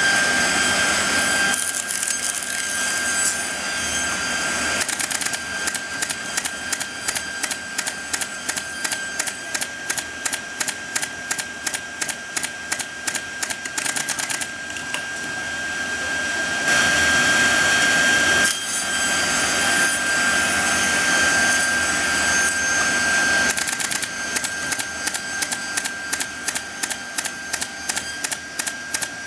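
Automatic door-line grooving and nailing machine running: a steady high whine under an even series of sharp clicks, about two to three a second, from its pneumatic nailer firing into the strip. There is a louder rush of noise for about two seconds past the middle.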